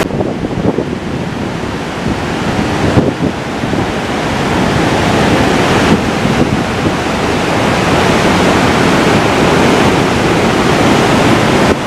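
Whitewater rapids of the Jinsha River rushing through Tiger Leaping Gorge, a loud steady roar of water, with wind buffeting the microphone.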